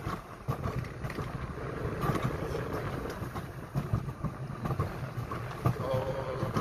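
Mountain coaster cart running fast along its rail track: a steady low rumble from the wheels with irregular small knocks, and wind buffeting the microphone.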